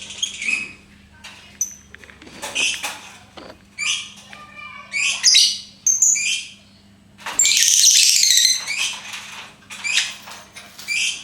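Lovebird calling: a string of short, sharp, high chirps and squawks, with a longer burst of chatter about seven seconds in.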